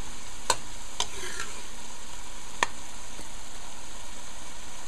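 Shrimp and mushroom stir fry sizzling steadily in a metal pot while it is stirred, with three sharp knocks of the stirring utensil against the pot in the first three seconds.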